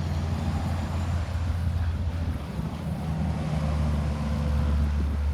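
Wind buffeting a phone's microphone outdoors: a loud, gusty low rumble that cuts off suddenly at the end.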